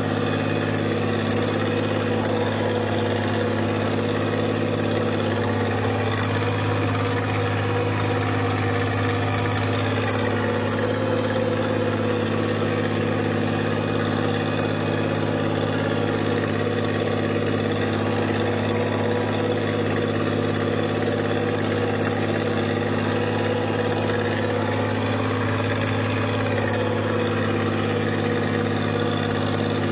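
Tractor engine running steadily at an even, unchanging pitch.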